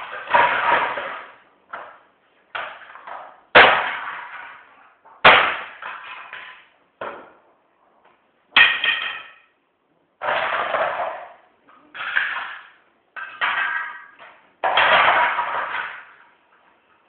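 A Canon BJC bubble-jet printer being smashed: about ten heavy blows at uneven intervals, each a sharp crash followed by a short clatter of breaking plastic and loose parts.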